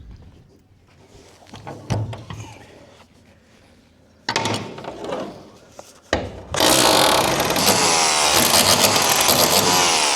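A handheld power tool starts about six and a half seconds in and runs loudly and steadily, cutting into the old roof hatch fitting. A sudden scraping noise comes a couple of seconds before it, after some light knocks.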